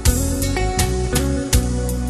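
Background music: guitar-led song with a bass line and a regular beat.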